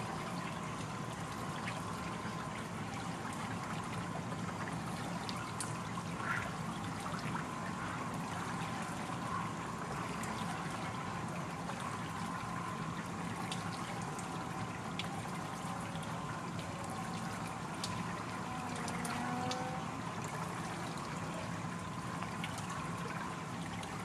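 Wooden water wheel turning in a shallow stream, water spilling and trickling off its paddles over the steady flow of the stream, with scattered small drips and splashes.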